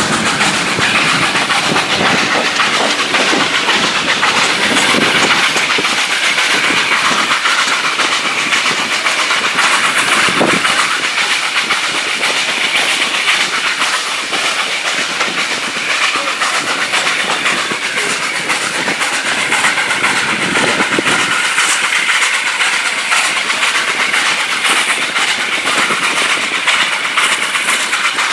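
Steam train hauled by a Hunslet Austerity 0-6-0ST saddle tank, heard from an open coach window while running: the coaches' wheels clatter over the rail joints under a steady rush of running noise and wind.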